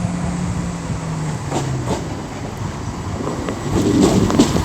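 Class 170 Turbostar diesel multiple unit pulling away from a platform, its diesel engines running under power with a steady drone whose note drops about a second in and fades soon after, over the rumble of the train.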